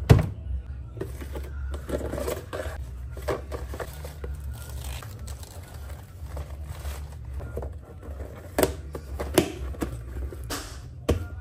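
Kitchen handling noises: a fridge crisper drawer knocks shut, then vegetables rustle and plastic food containers scrape and click as they are handled and their lids pressed on. A low steady hum runs underneath.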